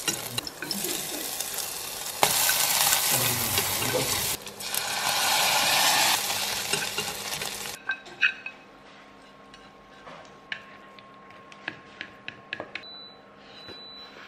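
Chopped shallots sizzling in hot oil in a small pan, stirred with chopsticks. The sizzle gets louder about two seconds in and stops abruptly about eight seconds in. After that come scattered light clicks of chopsticks against a plastic salad bowl.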